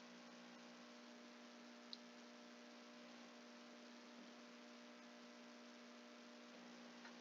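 Near silence: a faint, steady electrical hum, with a single tiny click about two seconds in.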